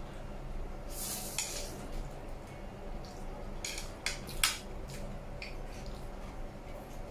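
Noodles slurped about a second in, then wooden chopsticks clicking and scraping against a plate several times, the sharpest click past the middle.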